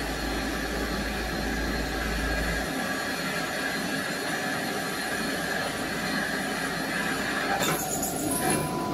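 CNC gantry plasma cutting and drilling machine running, a steady mechanical whine with several high tones over a low hum that drops away about a third of the way in. Near the end a loud hiss lasts about a second, followed by a steady high tone.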